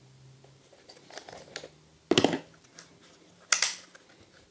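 Clicks and handling noise from a Canon EOS R8 mirrorless camera as it is switched on and its retracted RF 24-50 kit lens is twisted out so it can work. There are a few light clicks, then two short, louder scraping sounds about two and three and a half seconds in.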